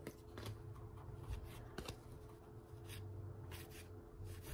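Baseball cards being handled and flipped through: soft, scattered rustles and flicks of card stock over a faint steady hum.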